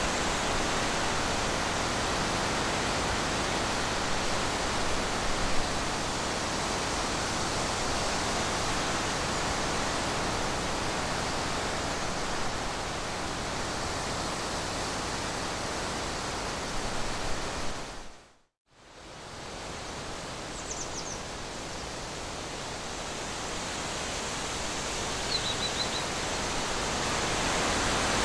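Steady outdoor background hiss and rush with no clear source, broken by a brief dropout about two-thirds of the way through before fading back in. Two faint, short, high chirps follow the dropout.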